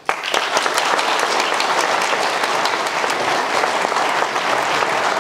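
Audience applauding: many hands clapping, starting abruptly and keeping on at a steady level.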